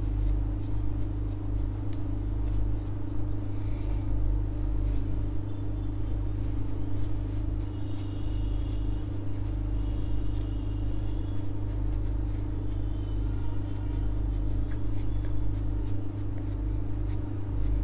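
Steady low hum of a running machine in the room, unchanging throughout.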